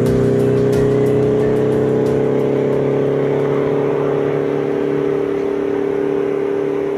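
A loud, steady droning tone with several overtones, rising slightly in pitch and cutting off suddenly near the end; part of an added soundtrack, not the cooking.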